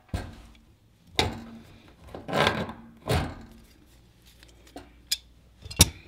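Slip-joint grips working a plastic collar off a radiator lockshield valve stem: several short scraping rubs, then sharp clicks near the end, the last and loudest about a second before the end.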